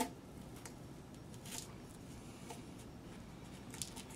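Grip tape being peeled and unwound from the joint of a ukulele neck: a sharp click right at the start, then a few short, faint rasping tears.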